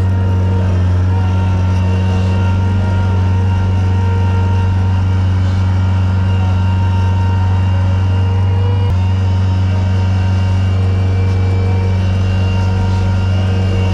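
Vehicle engine running at a steady speed, heard from inside the cab as a constant low drone.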